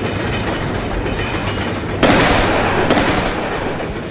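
Steady rumbling of a passing cartoon steam train, then about halfway a sudden loud blast that dies away over the next two seconds.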